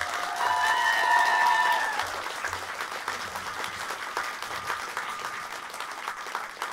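Audience applauding, loudest over the first two seconds and then settling to steady clapping. A brief held pitched sound rides over the applause in the first two seconds.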